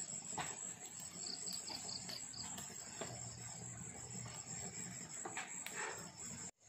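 Insects trilling steadily at a high pitch, with a second insect chirping in a quick run of pulses about a second in, and a few faint clicks. The sound cuts out abruptly for a moment near the end.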